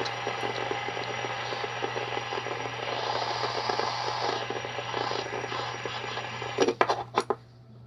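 Fidget spinner whirring as it spins, a steady buzzing whir with a fast rattle from its bearing, ended near the end by a few sharp knocks as it is handled.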